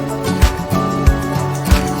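Background music with a steady beat, about one low beat every two-thirds of a second, over sustained tones.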